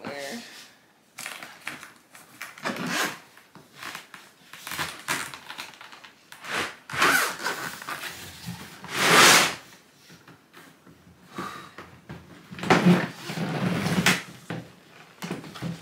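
Rustling, scraping and knocking as things are handled and packed into a bag, in irregular bursts, the loudest about nine seconds in.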